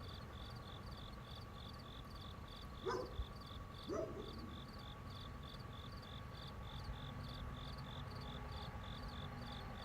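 Outdoor ambience of a cricket chirping in an even rhythm, about three high chirps a second, over a steady low whirr with a faint constant hum. Two brief louder sounds come about three and four seconds in.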